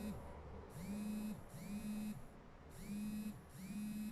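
Garrett AT Gold metal detector sounding its target tone about four times, one tone for each pass of a silver ring over the search coil. Each beep is a steady low tone under a second long, sliding up at the start and down at the end.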